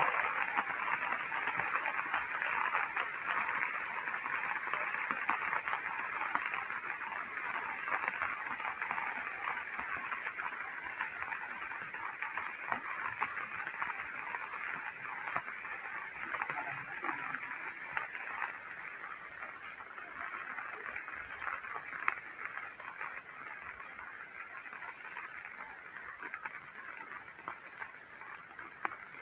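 Steady heavy rain hissing and pattering. A steady high-pitched drone runs over it and gets louder a few seconds in.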